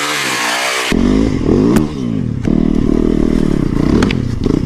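Yamaha single-cylinder dirt bike engine revving, first heard from a distance, then up close after about a second, its pitch rising and falling again and again as the throttle is worked, with a few sharp knocks.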